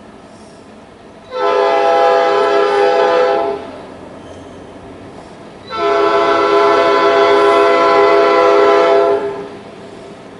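Freight locomotive air horn sounding two blasts, the second longer than the first, each a chord of several steady tones.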